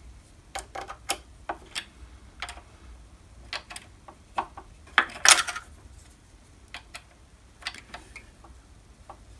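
Irregular metallic clicks and ticks of a T-handle hex key seating and turning in M4 socket-head screws as a ballscrew bearing block is tightened down. The loudest and longest comes about five seconds in.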